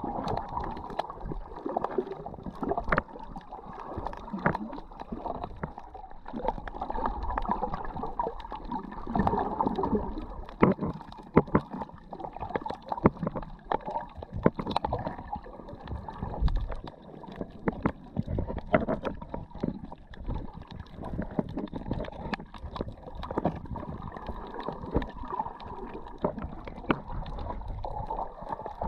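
Water heard through a submerged camera: a muffled, shifting watery rush with many short clicks and pops scattered throughout.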